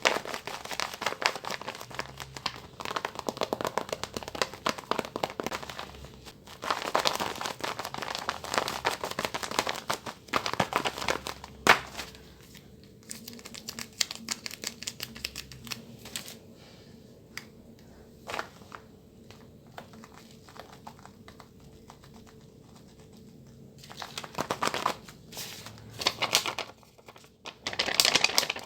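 Paper crinkling and rustling as it is handled and unwrapped, with a sharp snap about twelve seconds in, a quieter stretch of light ticks, then crinkling again near the end.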